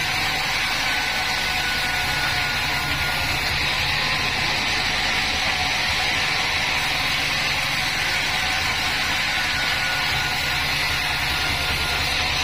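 Bandsaw36 band sawmill running steadily through mahogany, a constant machine hum with a faint high whine that comes and goes twice.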